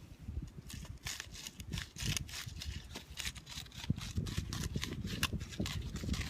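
Small pebbles clattering and scraping inside a carved wooden cup as its inside is sanded down over the pine-pitch patch. It is a quick, irregular run of clicks and scrapes.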